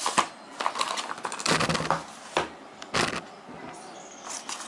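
A smartphone's retail box being opened and handled: several knocks, scrapes and rustles of the box and its contents.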